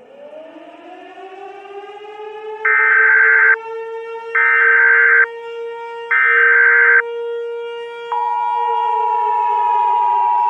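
A digitally made, heavily edited civil-defence siren winds up from a low growl to a steady wail. Three one-second Emergency Alert System data bursts (SAME header tones) sound over it. About eight seconds in, the EAS two-tone attention signal starts as the siren begins to wind down.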